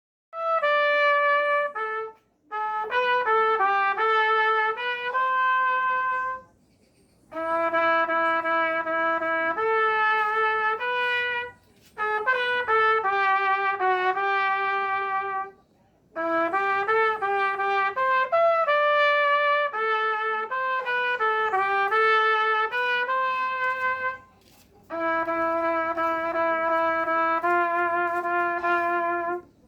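Solo trumpet playing a slow worship hymn melody, one note at a time in sung-like phrases, with short breath pauses between phrases about five times.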